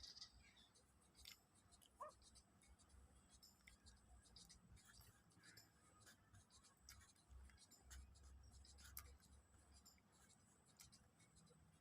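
Near silence: room tone with faint scattered clicks and light scratching.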